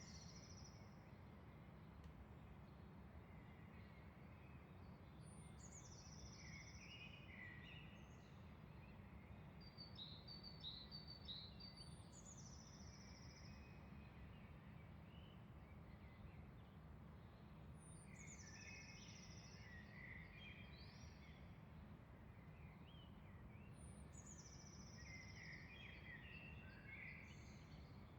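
Faint dawn birdsong: one bird repeats a high, falling phrase about every six seconds while other birds chirp and warble lower, with a quick run of short notes about ten seconds in. A steady low rumble of background noise runs underneath.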